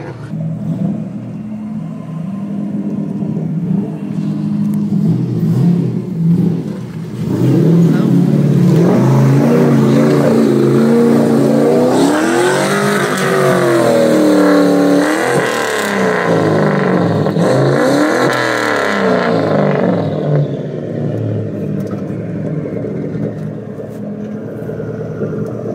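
Turbocharged Hemi V8 in a Ford F100 pickup revving hard off-road, its pitch rising and falling repeatedly as the truck pushes through deep mud. It is loudest in the middle, with a rushing noise over the engine, and eases off near the end.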